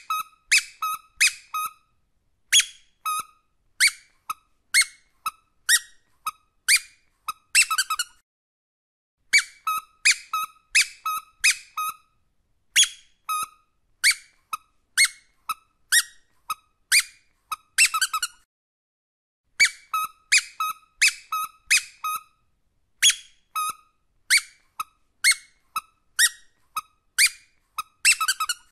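Rubber squeaky dog toy squeaked over and over in quick runs of short, high squeaks, about three a second, with brief pauses between the runs.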